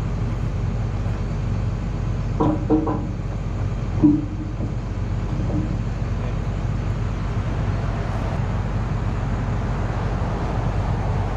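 John Deere excavator's diesel engine idling steadily, with a short knock about four seconds in.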